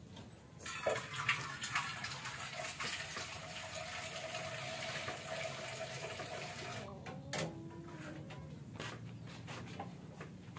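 Water running, starting about a second in and tailing off around seven seconds, followed by a few light knocks.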